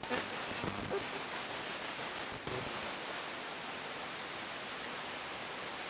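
Spirit box sweeping the radio band: a steady hiss of static with a couple of faint, brief blips, played through a soundboard that adds delay and reverb.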